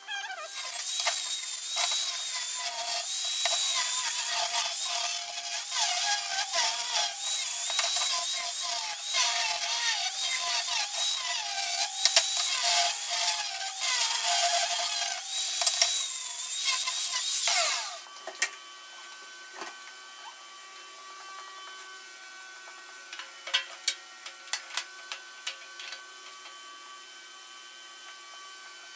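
An electric power tool working metal, its motor pitch dipping and recovering under load, then switched off about 18 seconds in and spinning down with a falling whine. A few faint clicks follow.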